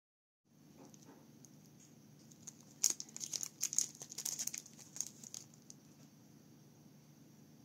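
A clear plastic packet crinkling as it is handled, a quick flurry of sharp crackles lasting about three seconds near the middle, over faint room tone.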